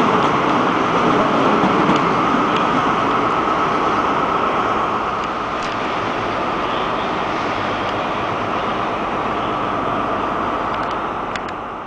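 Heathrow Express electric train running on the track, a steady noise of wheels on rail that eases a little about halfway through as the train moves away.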